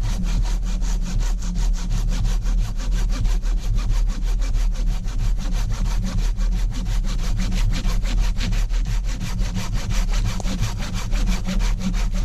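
Hand saw cutting through dead standing wood in fast, even strokes, over a steady low rumble.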